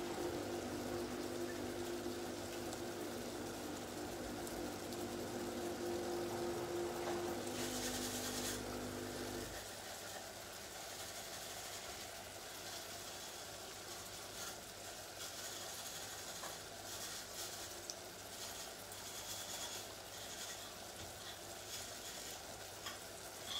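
Steady mechanical hum that cuts off suddenly about nine to ten seconds in, over the steady hiss and faint crackle of pots cooking on an electric hob.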